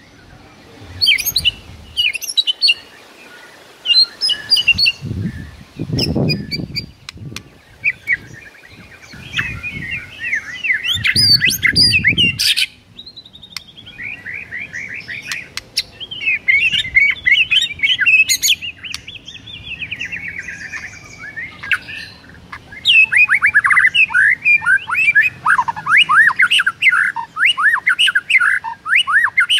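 White-rumped shama singing: short whistled phrases at first, then long fast runs of varied whistles and chatters, densest in the second half. A low rumble comes twice in the first half.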